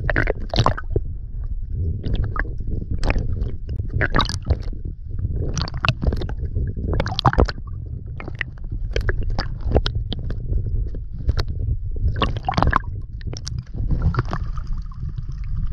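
Seawater sloshing and gurgling around a submerged action camera: a steady low rumble with irregular bubbly clicks and crackles. About fourteen seconds in, as the camera nears the surface, a faint steady tone joins.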